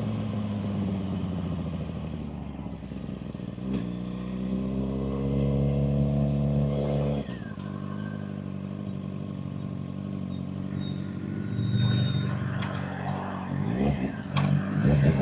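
Suzuki GSX-R600 inline-four with an M4 exhaust, heard while riding: the revs fall off, then climb under throttle from about 4 s, drop sharply just after 7 s as the throttle closes, run steady, and climb again with quick blips near the end.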